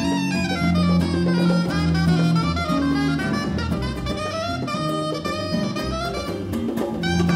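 Live jazz quartet playing: a saxophone lead line over acoustic guitar, bass and congas, with held bass notes underneath.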